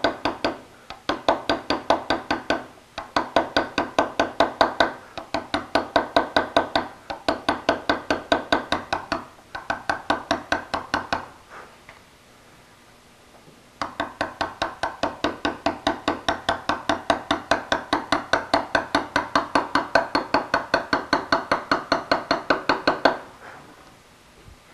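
Hand hammer tapping a chisel to cut V-cut letters into hard slate, about five or six light, even taps a second. The taps come in runs of about two seconds with short breaks, stop for about two seconds a little before the middle, then go on in one long run of about nine seconds that stops shortly before the end.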